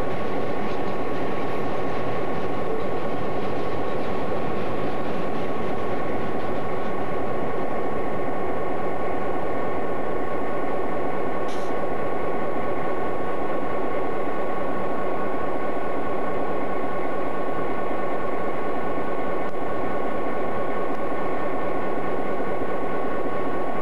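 EMD GP-9 diesel-electric locomotive idling at close range: its 16-cylinder 567 engine gives a steady, even drone with a constant high tone running through it.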